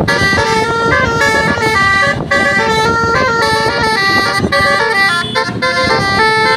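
Bus 'telolet' basuri musical air horn playing a tune. Several pitches sound at once and step to new notes several times a second over a held low note, with brief breaks about two seconds in and near the end.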